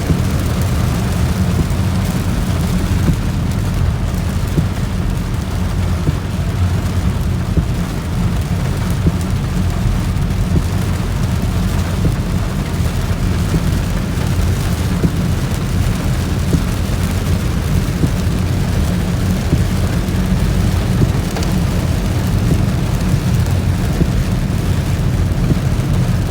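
Heavy rain pelting a car's roof and windshield, heard from inside the moving car over a steady low road rumble, with many fine drop ticks.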